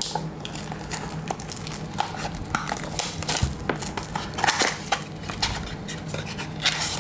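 Scattered light clicks and taps of cardboard and trading cards being handled as a card pack is opened, over a low steady hum.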